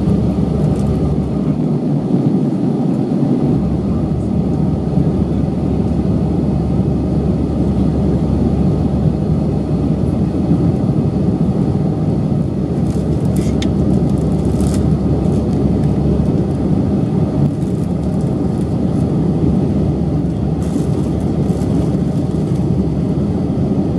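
Steady drone of jet engines and rushing air heard inside the cabin of an Airbus A320 in flight, with a few faint ticks about halfway through.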